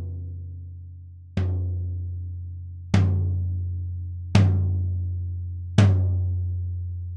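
Floor tom struck with a drumstick five times, about a second and a half apart, each stroke followed by a long, low, slowly fading ring. The hits get louder with each of the first four, and the drum is close-miked on a stand.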